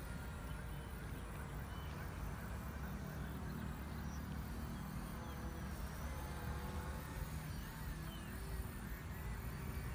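Wind buffeting the phone's microphone as a steady low rumble. Under it runs a faint, wavering hum from the small RC plane's electric motors overhead, and a few short bird chirps come through.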